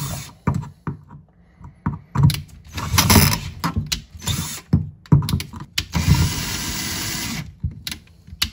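Cordless drill boring into the stuck centre piece of a sink basket strainer: a string of short, start-and-stop bursts with clicks as the bit catches, then one steady run of about a second and a half, about six seconds in. It is cutting out a part whose slots have been stripped.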